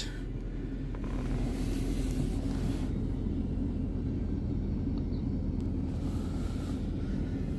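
Steady low rumble of the 2019 Ford Ranger's 2.3-litre EcoBoost turbocharged four-cylinder idling, heard from inside the cab.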